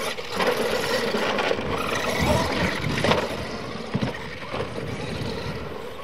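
Radio-controlled monster trucks racing on a dirt track: their motors whirring and tyres working the dirt, with a few sharp knocks as the trucks land jumps.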